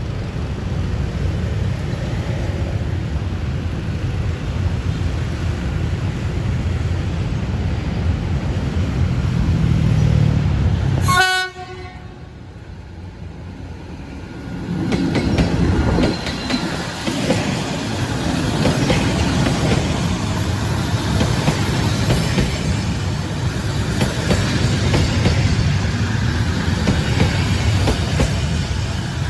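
Diesel-electric locomotive with its train: a steady low engine rumble, then a very short horn toot about eleven seconds in. After a few quieter seconds, the train rumbles past with wheels clacking over the rail joints.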